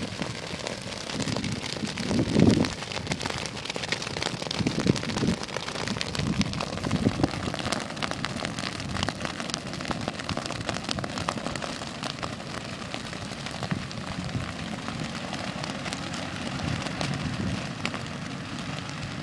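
Dead grass fire burning fiercely: a dense, continuous crackle with a few low rushing surges, the loudest about two seconds in.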